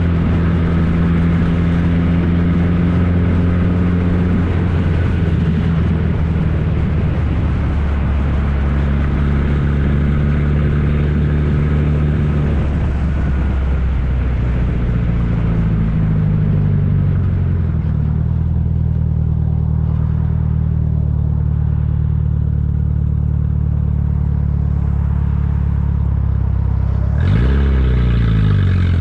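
1994 Ford Ranger's 2.3-liter four-cylinder engine running straight-piped, with no muffler fitted, a loud steady exhaust note. Near the end it suddenly gets louder and brighter as the pitch sweeps.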